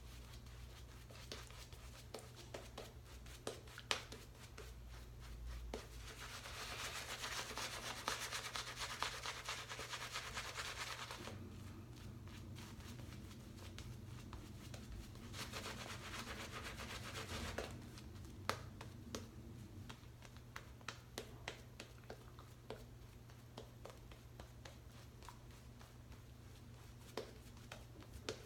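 Shaving brush working lather: the bristles rub with a faint swishing hiss that swells twice for a few seconds, with scattered small clicks in between.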